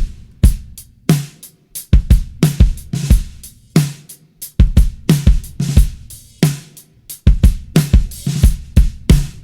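Acoustic drum kit playing a steady groove, with bass drum hits from a kick pedal beater under snare, hi-hat and cymbal strokes, about two beats a second with short breaks about four and seven seconds in.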